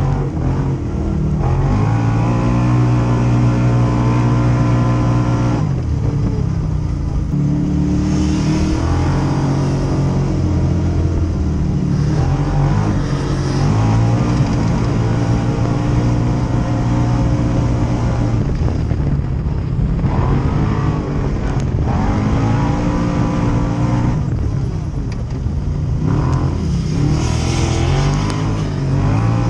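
Side-by-side UTV engine revving up and easing off again and again while driving on a dirt track. The pitch climbs with each burst of throttle, then drops sharply when the throttle is lifted.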